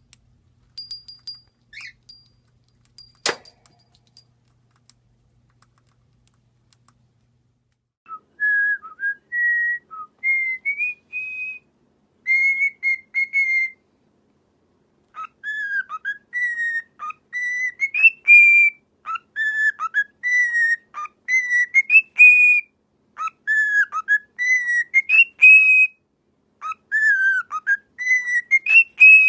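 A parrot whistling a tune: quick runs of short, clear whistled notes that step up and down in pitch, starting about eight seconds in and going on, with one sharp click a few seconds before.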